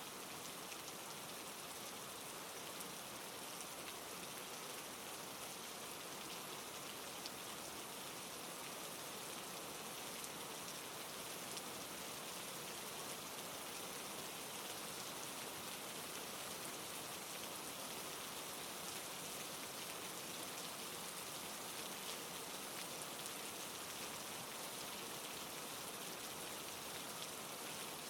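Steady rain falling, an even hiss of many drops with faint individual drop ticks, as a sleep-sound recording.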